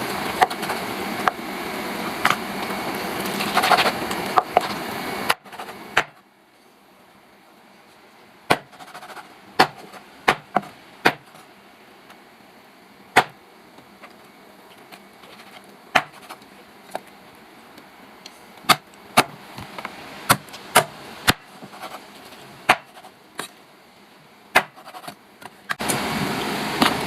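A steady loud hiss that stops abruptly about five seconds in, followed by a run of irregular, sharp knocks and clicks of hard objects, a little under one a second, over a faint background.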